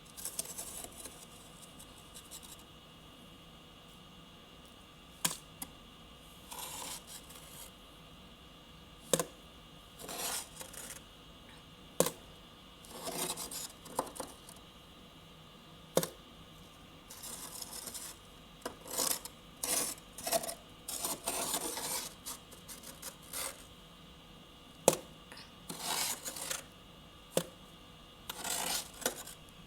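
Fluffy, powdery freezer frost being scraped and crunched in short irregular bursts, with several sharp clicks, one every few seconds.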